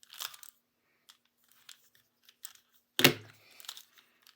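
Valk 3M speedcube being turned one-handed: a run of quick plastic clicks and scrapes, then a single louder knock about three seconds in.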